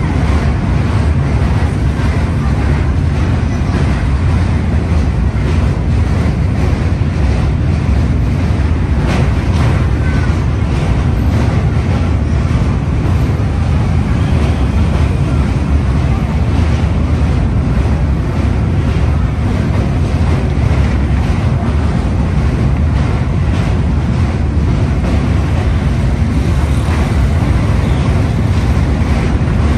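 Steady rumble of a train running across a steel truss bridge, heard from aboard, with wind buffeting the microphone.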